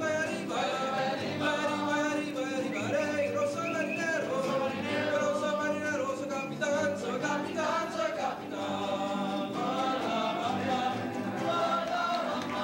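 Mariachi band performing a song: several voices singing together in Spanish, backed by guitars and violins.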